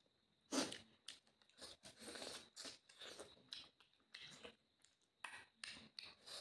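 A person chewing food with their mouth open to the microphone, in irregular bursts with crisp crunches.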